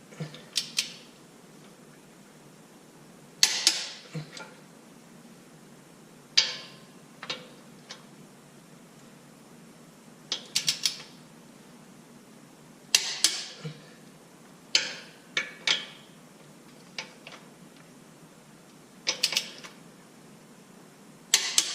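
Hand tools working metal bolts: short clusters of two to four sharp metallic clicks and clinks, repeated every couple of seconds, as the transmission-mount bolts are worked in.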